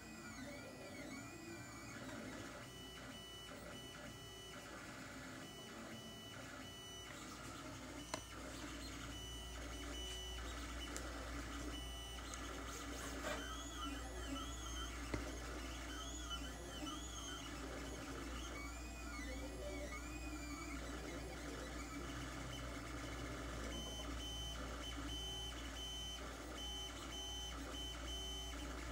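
Lulzbot TAZ 3 FDM 3D printer printing: its stepper motors whine and warble in short, changing-pitch moves as the print head and bed shuttle back and forth, over a steady low hum. A single click sounds about eight seconds in.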